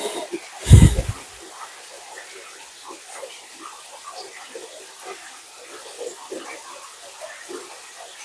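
Water splashing and sloshing in short irregular bursts, with one heavy thump about a second in.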